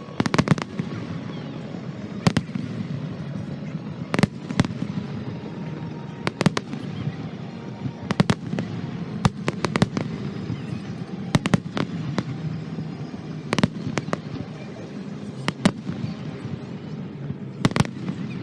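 Aerial fireworks going off: sharp bangs every second or two, several in quick clusters of two or three, over a steady background rumble.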